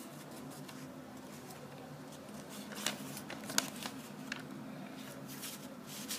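Paper rustling as a folded instruction leaflet is opened out and unfolded by hand, with a few short, sharp crackles of paper around the middle.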